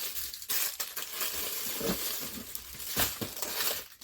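Plastic packaging crinkling and crackling as it is handled and opened, with a sharper crackle about three seconds in.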